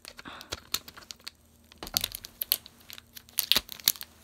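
Plastic packaging from a new laptop's box crinkling and crackling as it is handled, in quick irregular crackles that come thicker in the second half.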